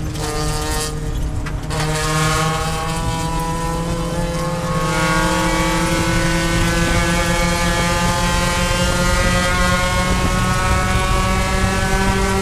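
Mazda Miata race car's four-cylinder engine heard from inside the cockpit: it eases off under braking at the start, then pulls under full throttle, its pitch rising slowly and steadily as the car accelerates.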